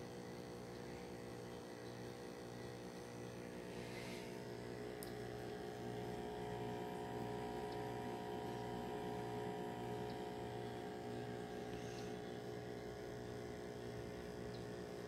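Aquarium air pump humming steadily, a low electrical mains hum.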